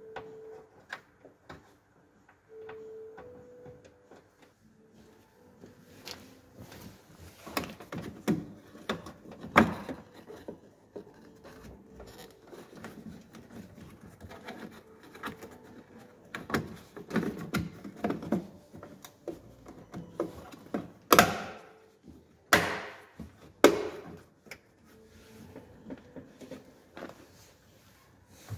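Handling noise from wiring being worked through a van's rear door frame: scattered clicks, rustles and knocks, with one loud knock about a third of the way in and three loud sharp knocks about a second apart about two-thirds of the way through.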